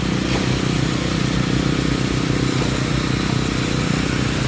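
Small engine of concrete-pouring machinery running steadily at a constant speed.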